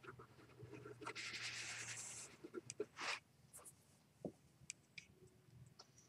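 Faint scratchy rubbing on carpet lasting about a second, a short scrape about three seconds in, then scattered light clicks as cats and kittens move about.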